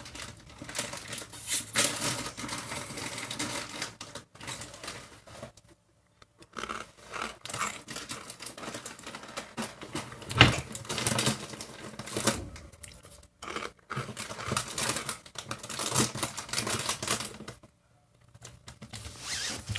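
Fritos corn chips being chewed close to the microphone: irregular crisp crunching, with short pauses between mouthfuls.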